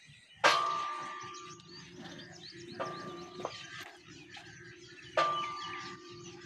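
Steel-pipe lifting frame clanking as it is handled: two loud metallic clanks, about half a second in and near five seconds, each ringing on and fading, with softer knocks around three seconds. Birds chirp faintly.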